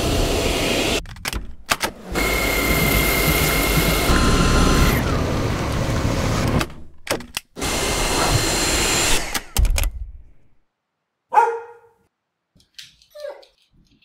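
Dyson V6 cordless stick vacuum running, its motor noise cutting out briefly a few times, with a steady high whine for about two seconds. About three quarters in it stops, and after a pause there is one short loud pet's call, then a few faint wavering calls.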